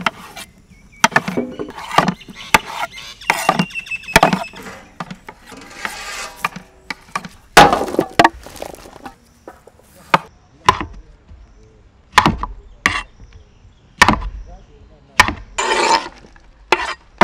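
Knives chopping tomatoes on cutting boards, a run of irregular sharp knocks, with chopped tomato pushed off the boards into a large metal pot.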